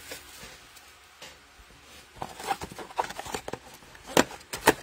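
Packaging of a trading-card mega box being torn open, plastic wrap crinkling and cardboard tearing. A run of crackles and snaps starts about two seconds in, with two sharp cracks near the end.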